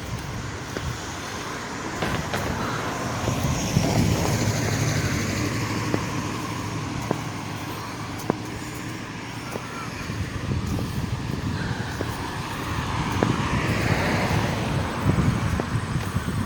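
Road traffic: vehicles passing on a street, a steady rumble that swells as one goes by a few seconds in and again near the end.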